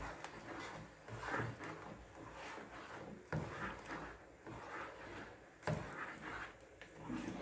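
A spatula stirring coconut-milk curry in a pot, scraping and swishing through the liquid, with two sharper knocks against the pot about three and a half and near six seconds in.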